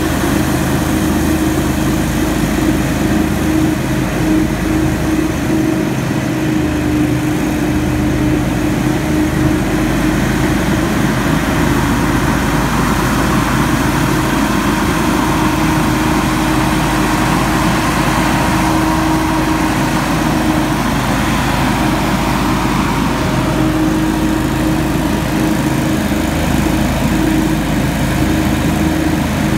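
Hurricane X3 stand-on leaf blower running steadily, its engine drone mixed with the rushing air from the blower fan as it blasts leaves.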